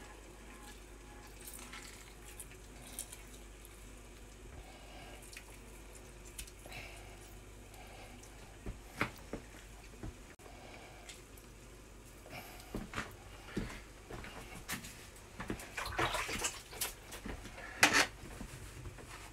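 A lime being squeezed by hand over a glass bowl, its juice trickling and dripping in. Scattered soft clicks run through it, with a few sharper knocks near the end.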